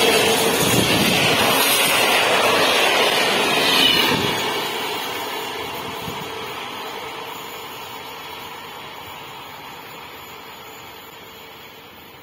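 PKP Intercity passenger coaches running past at speed, a loud rush of wheel and rail noise. About four seconds in the last coach clears and the sound fades steadily as the train draws away.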